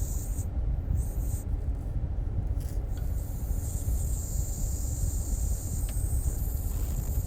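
Canned compressed-gas duster blowing through the small holes of a lawn mower carburetor: a short hissing blast ends just after the start, a brief one comes about a second in, and a long steady blast runs from about three seconds in. A steady low rumble sits underneath.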